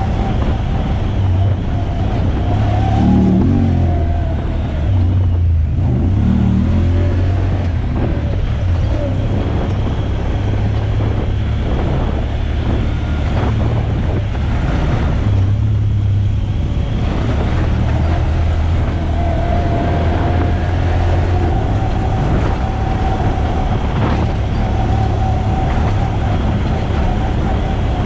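Off-road vehicle engine running as it drives, a steady low drone whose pitch shifts now and then, with rattles from the ride.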